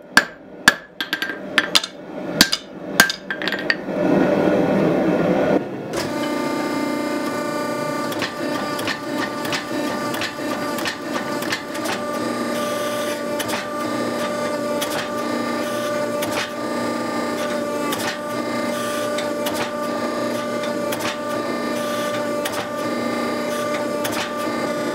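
Hand hammer striking hot steel on an anvil horn, ringing blows about twice a second for the first few seconds. After a brief loud rushing noise, a hydraulic forging press runs steadily with a constant hum and many small clicks as it squeezes the glowing steel between its round dies.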